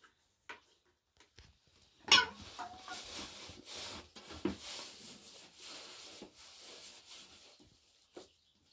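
Hands working flour and dough: a sieve shaken back and forth as flour is sifted, and dough kneaded in an aluminium basin, making a pulsing rubbing hiss. It begins with a sharp loud knock about two seconds in and fades out near the end.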